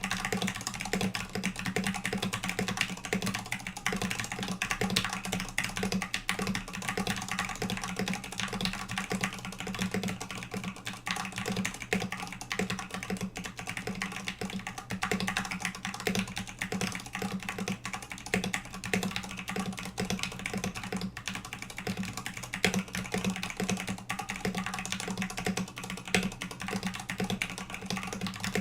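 Continuous typing on a mechanical keyboard: vintage 62 g Cherry MX Black linear switches on a steel plate in an acrylic case, with high-profile MT3 keycaps, giving a dense, unbroken run of keystrokes. A steady low hum sits underneath.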